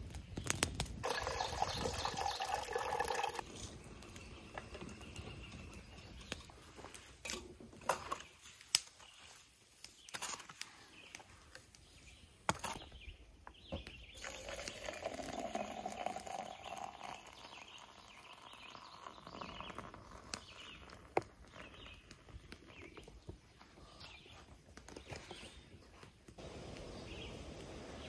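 Camp coffee being made: hot water poured from a steel pot into a French press, among scattered clinks and knocks of handled metal cookware, with birds chirping in the background.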